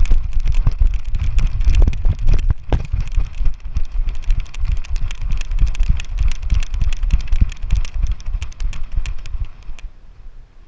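Rapid knocking, rattling and low thumping from a GoPro strapped to a running, playing dog, the camera jolting and rubbing against its harness. It stops abruptly near the end.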